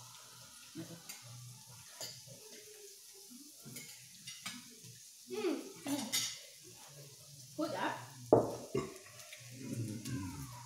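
Meat sizzling on a tabletop raclette grill plate, with chopsticks and cutlery clicking against the grill and plates. A single sharp knock about eight seconds in.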